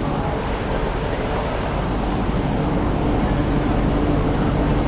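Steady interior rumble of a CRRC Qingdao Sifang IGBT-VVVF electric multiple unit (MTR 'Q Train'), with faint steady tones over the running noise.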